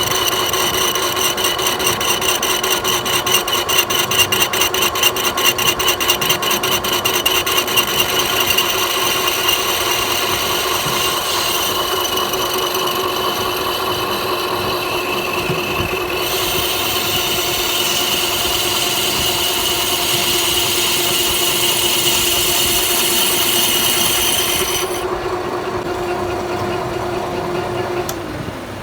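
Metal lathe running while turning a workpiece: a steady machine hum with a high whine and hiss of the cut, and a fast rattling chatter for the first several seconds. The high hiss stops suddenly about 25 seconds in, and near the end the machine's tone drops as it slows down.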